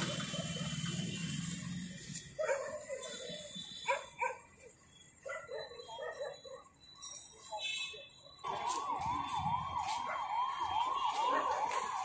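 Electronic siren-like warble, its pitch sweeping up and down about three times a second, starting abruptly about three-quarters of the way through and running on steadily. Before it come only faint, scattered short sounds.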